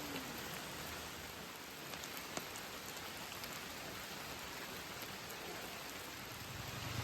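Steady rain falling, an even hiss with a few sharper drop ticks, and a low hum coming in near the end.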